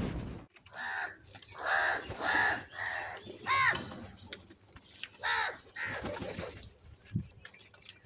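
A flock of house crows cawing: about seven harsh caws in the first six seconds, several in quick succession, then a quieter stretch with a few faint clicks.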